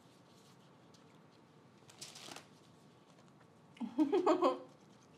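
Low handling noise from eating with the hands, with a brief crinkling rustle about two seconds in, then a short burst of voice near the end.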